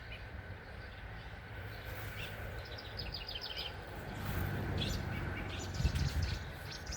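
Songbirds chirping in quick short series, with a low rumble coming in over the second half.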